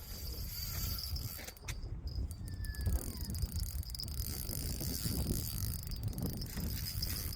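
Fishing reel being wound in while a trout is played, a steady mechanical ratcheting whirr. There is a low rumble underneath and a couple of sharp clicks about two and three seconds in.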